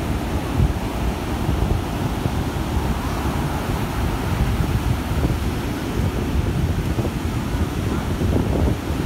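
Ocean surf washing and breaking on a sandy beach, with wind buffeting the microphone in an uneven rumble.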